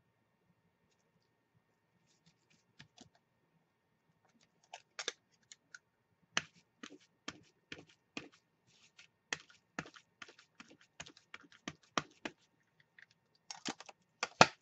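Light, irregular taps and clicks of a hand stamp being tapped and pressed onto a paper envelope on a tabletop. A few come at first, then about two or three a second, with a closely bunched, louder group near the end.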